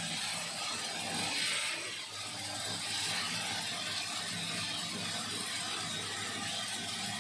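Moringa seed skin-cleaning machine running: seeds rattling and tumbling inside its slowly turning perforated metal drum, with a steady motor hum beneath an even, continuous hiss of the seeds.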